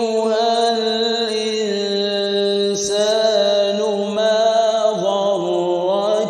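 A man's voice reciting the Quran in melodic tajwid style, holding long, ornamented notes, with a short break for breath about three seconds in.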